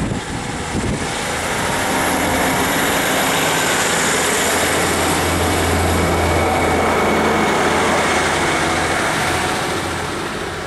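Class 150 Sprinter diesel multiple unit pulling away past the platform: its underfloor Cummins diesel engines drone under power over the rumble of wheels on rail. The engine drone swells around the middle and eases a little near the end as the carriages go by.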